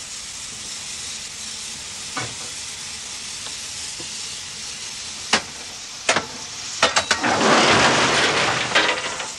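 Coal being dumped from a crane's drop-bottom bucket into a steam locomotive's tender: a few sharp knocks, then from about seven seconds in a loud rattling rush of falling coal lasting about two seconds, over a steady hiss.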